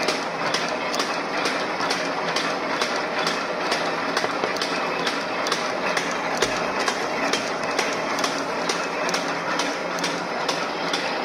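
Automatic paper bag making machine running steadily, with a regular clack about two to three times a second over its continuous mechanical noise.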